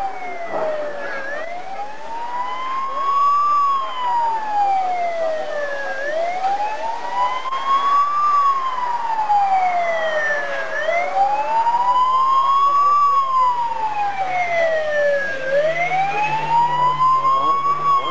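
A wail siren, its pitch sweeping slowly up and down about once every four to five seconds, with a faint engine coming in low underneath in the second half. At a rally stage this is the warning of a safety car coming through ahead of the competitors.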